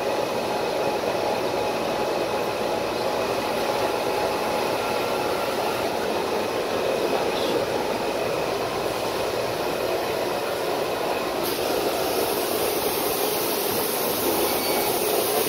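Flatbed digital cutting table running while its tool head cuts printed sign board: a steady machine noise with a faint hum.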